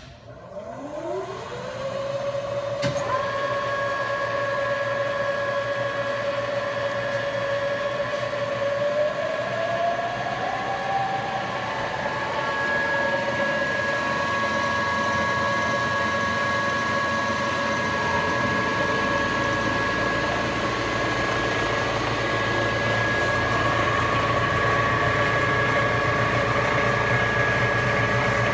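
Supermax YC-2VAS vertical milling machine started from its pendant control: a click, then the spindle motor spins up with a rising whine and settles into a steady hum. About ten seconds in, the pitch rises a little and holds, and a low rumble joins it near the end.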